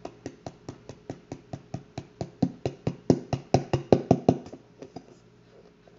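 Rapid, evenly spaced tapping, about four taps a second, growing louder and then stopping about four and a half seconds in.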